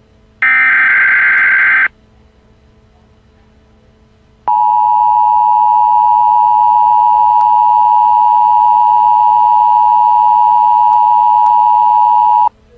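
Emergency Alert System broadcast tones. A short burst of digital header data buzzes for about a second and a half near the start. After a pause of a few seconds, the steady two-tone EAS attention signal sounds for about eight seconds and cuts off sharply just before the end.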